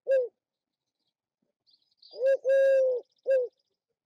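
Eurasian collared dove cooing in its owl-like way: the short last note of one call, then about two seconds in a full three-note coo, short-long-short.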